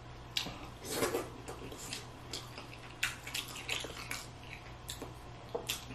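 A person eating a saucy seafood boil: faint mouth smacks and small clicks, scattered at irregular intervals.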